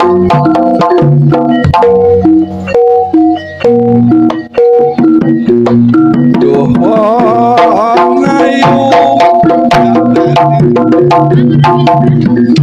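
Jaranan accompaniment music: pitched percussion plays a fast repeating pattern of short notes over hand drums, and a wavering melodic line rises above it about halfway through.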